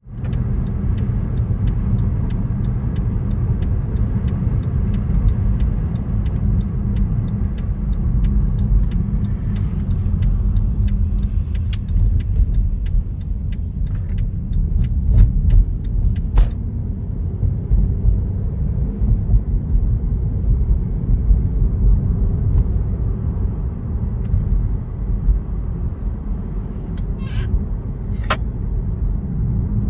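Car driving, heard from inside: a steady low rumble of road and engine noise. A light, regular ticking, about one to two ticks a second, runs through the first half and then stops.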